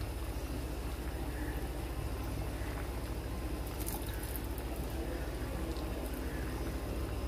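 Stuffed dough balls deep-frying in hot oil in a pan: a steady sizzle over a constant low rumble.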